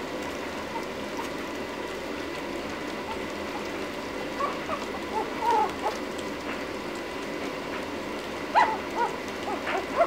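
A litter of Lhasa Apso puppies feeding from a shared tray, with a steady wet lapping and licking. Short high puppy squeaks and whimpers come in about halfway through, and a few louder ones come near the end.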